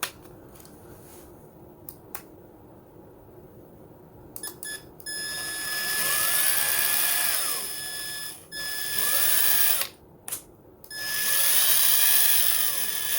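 Ryobi P263 cordless 3/8-inch impact wrench, with a brushed motor, free-spinning without load on its lowest speed setting: three trigger pulls, each with the motor whine rising and then falling as the trigger is squeezed and released. A few clicks come before the first run.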